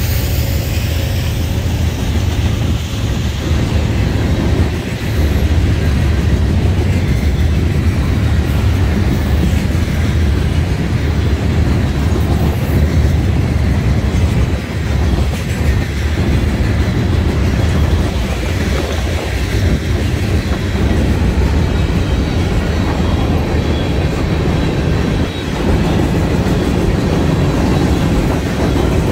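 Freight cars of a passing manifest train (boxcars, gondolas and covered hoppers) rolling by, a loud, steady rumble with the wheels clattering over the rails.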